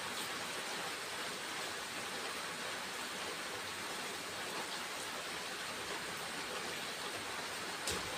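Steady, even hiss of outdoor background noise, with a single click near the end.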